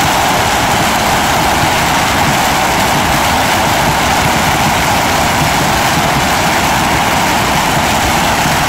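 A long string of firecrackers going off in a loud, continuous rapid crackle.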